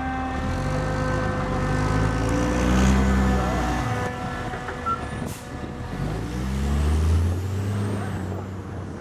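Heavy truck engine revving up and dropping back twice, about three seconds in and again near seven seconds.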